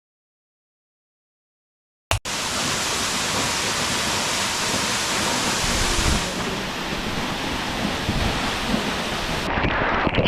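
Steady rushing of falling water, such as a waterfall, starting suddenly about two seconds in after silence. Near the end the hiss thins and the noise turns gustier.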